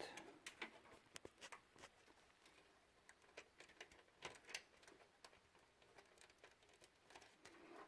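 Faint, scattered light clicks and taps of small plastic front-panel connectors and thin wires being handled and pressed onto motherboard header pins.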